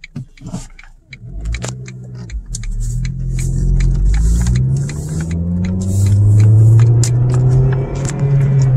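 Ford Focus SVT's 2.0-litre four-cylinder engine accelerating hard from a pull-away in a manual gearbox, rising in pitch and getting louder. It eases off briefly about halfway for a gear change, then climbs again. There are a few light clicks near the start.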